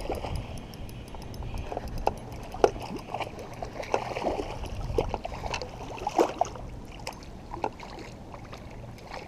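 A lure is buzzed across the water surface on a quickly cranked spinning reel, with an uneven run of short splashes and gurgles and a low rumble of handling noise.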